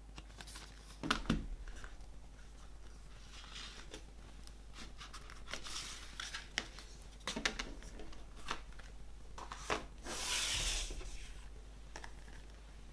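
A CD package being unwrapped and handled: scattered clicks and plastic rustling, with a longer tearing, crinkling sound about ten seconds in.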